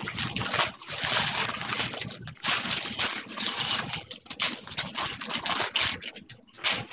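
Bible pages being turned, a rustling of paper in irregular bursts over a video-call microphone.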